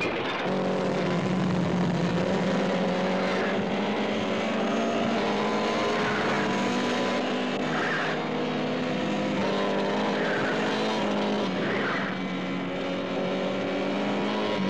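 Motorcycle engines running steadily at speed, a droning engine note that drifts a little in pitch, with a few short higher squeals laid over it, about two seconds apart.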